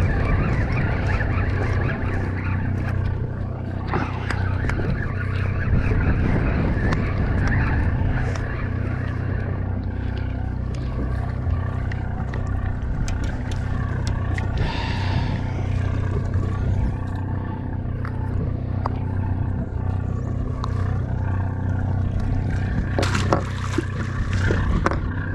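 Boat engine running steadily with a low drone, with scattered clicks and a few sharper knocks near the end.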